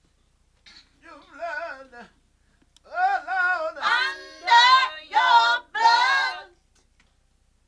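Unaccompanied gospel singing voice: a short phrase, then a longer phrase of held, wavering notes, with silent gaps between them.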